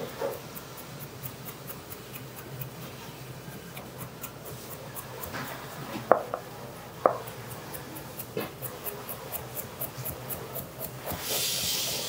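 Chef's knife slicing carrots on a plastic cutting board: a steady run of light knife taps, about three a second, with a few louder knocks in the middle. A brief hiss near the end.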